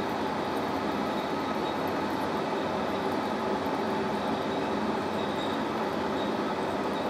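Metal lathe running steadily with its chuck spinning, giving a constant even machine hum.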